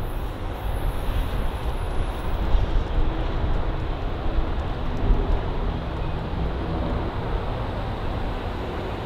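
Train rolling past, the cars' wheels on the rails making a steady rumble.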